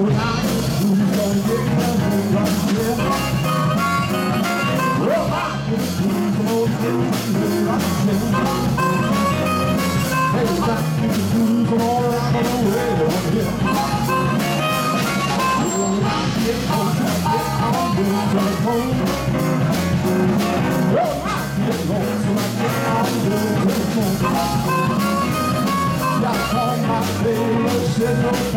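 Live blues band playing: electric guitars and a drum kit keeping a steady beat, with a male voice singing and a harmonica played into a microphone.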